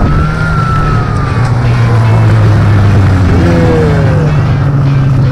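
Snowmobile engine running steadily at speed, with a high whine that slowly falls in pitch; the sound cuts off suddenly near the end.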